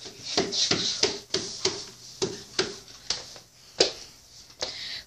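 Irregular knocks and rustling, about two or three a second, from people moving about and handling things close to the microphone.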